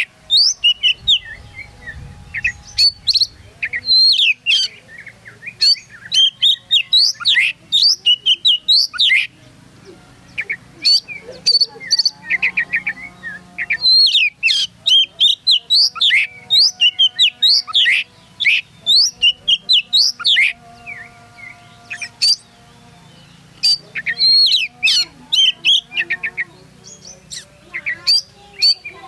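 Oriental magpie-robin (kacer) in full song: loud, rapid phrases of sharp whistles, chips and sweeping notes, delivered in bursts with short pauses between them.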